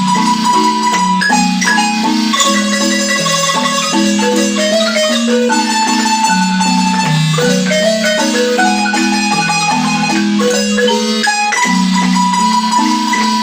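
Marimba music: a melody of struck notes, some held as long sustained tones, over a steady line of lower notes.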